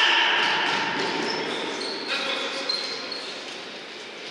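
Sound of a futsal game in play in a reverberant sports hall: players calling out, with the ball being kicked and players moving on the court floor. It is loudest at the start and fades slowly.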